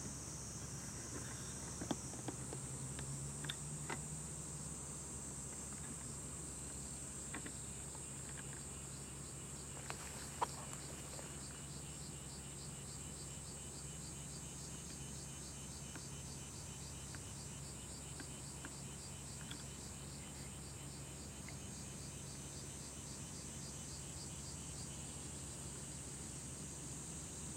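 Steady high-pitched insect chorus, with a rapidly pulsing insect call repeating over it through the middle. A few sharp clicks in the first half, the loudest about ten seconds in.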